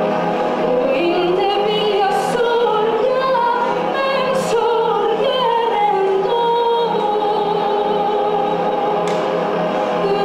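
A wordless voice sings through a handheld microphone in long held, wavering notes that slide from pitch to pitch, over a steady low pulsing hum. Three brief hisses cut in.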